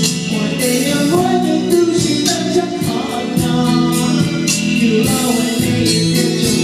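Karaoke singing into a microphone over a loud backing track with a steady beat.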